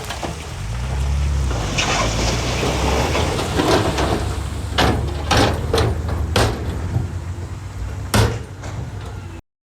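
Heavy construction machine's diesel engine running at a steady low pitch, with several sharp knocks and clanks from about halfway in, the loudest near the end. The sound stops abruptly just before the end.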